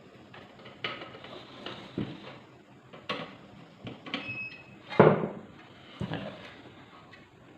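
Rice cooker parts being handled and fitted back together during reassembly: a series of separate knocks and clatters of hard parts, about one a second, the loudest about five seconds in.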